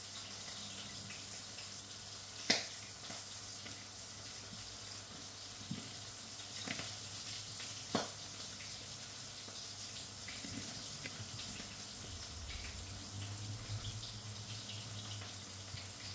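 Grated radish being squeezed by hand in a plastic bowl, its water squelching and dripping out, over a steady hiss. Two sharp clicks stand out, about two and a half and eight seconds in.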